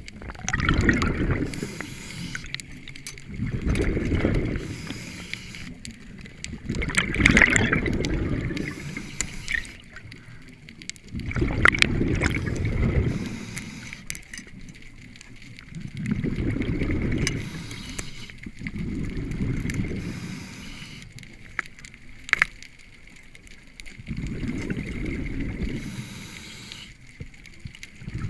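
A scuba diver breathing through a regulator underwater: a burst of rumbling exhaled bubbles about every three to four seconds, with scattered sharp clicks in between.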